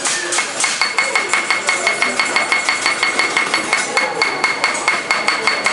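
A teppanyaki chef drums metal shakers on the steel griddle: rapid, even metallic clacking at about five strikes a second, with a steady ringing tone over it.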